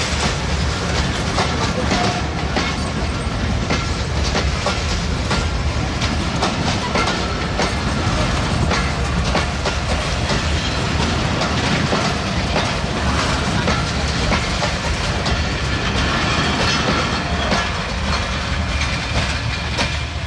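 Broad-gauge express passenger train passing on a double line, its wheels rolling over the rail joints in a steady clickety-clack with a continuous rumble.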